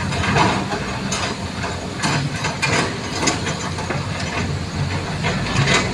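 Heavy diesel vehicle engine running steadily, with several short hissing bursts over it.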